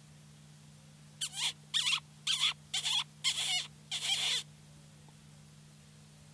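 A run of six shrill mouth squeaks over about three seconds, made by sucking air through pursed lips to imitate a distressed rodent and call in a bobcat. A faint steady low hum runs underneath.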